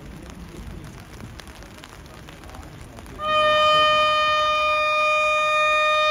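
Railway locomotive air horn sounding one long, steady note that starts suddenly about halfway through, over a background murmur.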